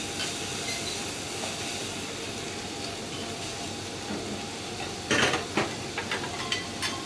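Chateaubriand steaks sizzling on a steel teppanyaki griddle, a steady hiss. A little past five seconds in, metal utensils clink and tap sharply on the griddle several times, with a few lighter taps after.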